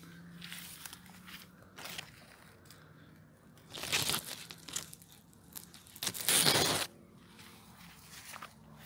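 Rustling and crunching of courgette leaves and stems and dry straw mulch as they are pushed through by hand, with two louder rustling bursts, about four seconds in and again near six to seven seconds in.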